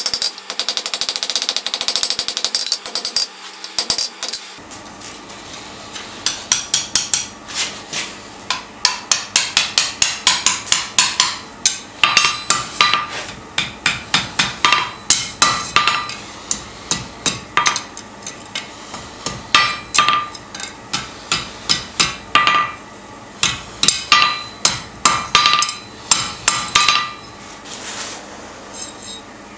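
A hand hammer strikes red-hot steel on an anvil, forging the jaw of a pair of fireplace tongs. The first few seconds are a dense flurry of blows. After that come runs of separate ringing strikes, about two or three a second with short pauses, which stop near the end.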